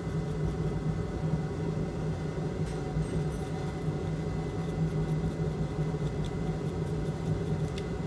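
A brush scrubbing corrosion off a circuit board, with faint scratchy ticks, over a steady low hum of bench equipment.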